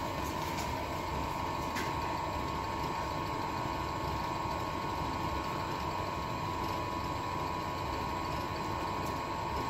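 Hydraulic pump motor of a concrete compression testing machine running steadily, with a constant whine over a low hum, while the ram closes on the cube and no load has built up yet.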